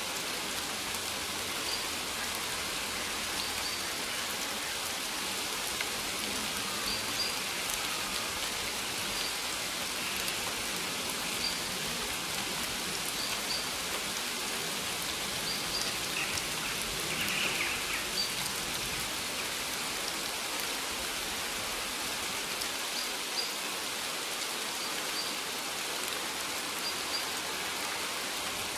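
Steady rain falling on maize leaves, an even hiss with small drop ticks. A faint short high chirp repeats every second or two.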